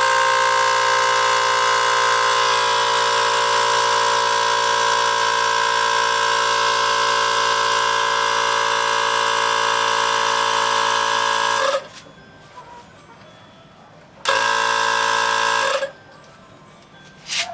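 INGCO portable auto air compressor running steadily for about twelve seconds, then stopping. It runs again briefly, for about a second and a half, near the end.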